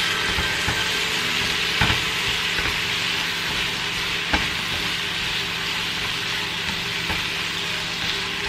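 Food sizzling steadily in a hot frying pan, with a few sharp clicks as it is stirred.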